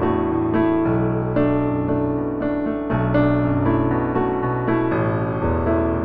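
Background piano music: notes struck about twice a second over held bass notes that change every second or two.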